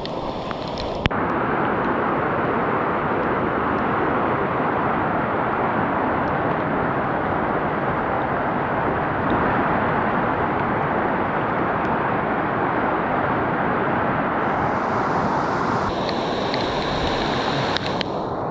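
A swollen, muddy river in flood rushing over rapids: a steady, loud rush of water. There is a knock about a second in, after which the water sound is louder.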